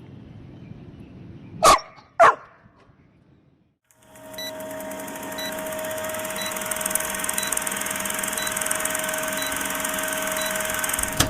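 A Labrador puppy barks twice, loud and about half a second apart. About four seconds in, a steady hiss with a faint steady hum sets in.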